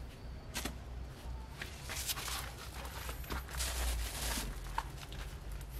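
Dry, crisp rustling and crunching of burnt rice husk being handled and patted down by gloved hands, in irregular short bursts with a few small clicks, over a low steady rumble.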